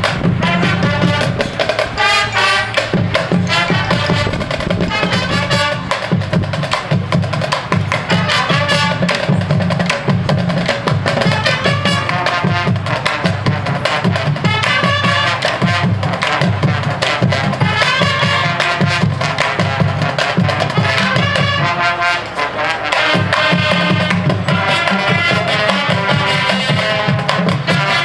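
High school marching band playing: brass and percussion together, with many sharp drum strikes throughout.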